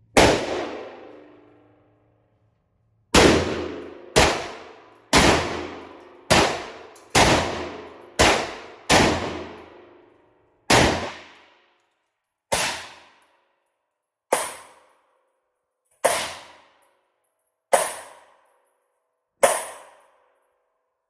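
Fourteen single gunshots on an indoor shooting range, each ringing off the walls as it dies away. One shot comes alone, then after a pause a string about a second apart that slows to about one every one and three-quarter seconds.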